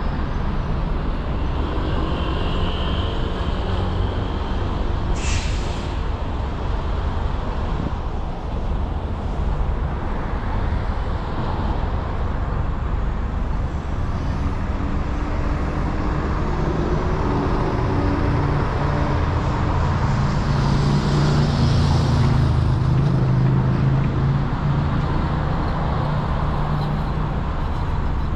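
City street traffic at an intersection: a steady low rumble of idling and passing engines, a short hiss about five seconds in, and a swell of engine noise past the middle as a city bus and cars cross.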